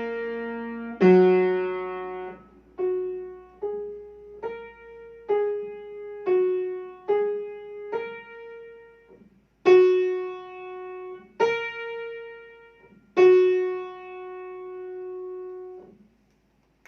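Piano playing a slow, simple beginner melody of single struck notes that are each left to ring, with a lower note under the first two, ending on a long held note.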